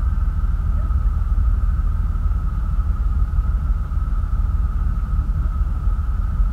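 Heavy wind noise buffeting the microphone of a camera on the stern of a motorboat under way, over the boat's engine running with a steady high whine.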